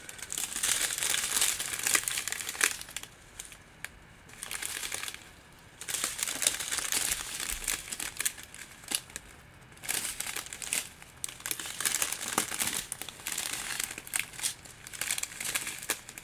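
Clear plastic bags of resin diamond-painting drills crinkling as they are handled and shuffled, in bursts with short pauses between.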